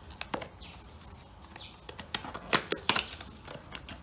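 Small cardboard retail box being opened by hand: scattered sharp clicks and rustles of card flaps and plastic packaging, the loudest cluster about two and a half to three seconds in.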